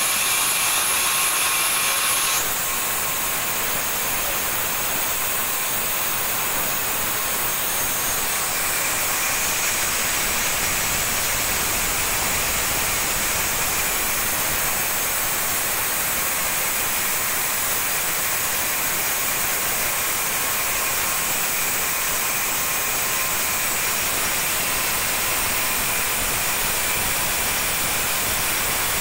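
Homemade bandsaw mill running, its band blade turning on car-tyre wheels and sawing lengthwise through a wooden slab: a loud, steady mechanical noise, strongest in the high pitches, that shifts slightly about two seconds in.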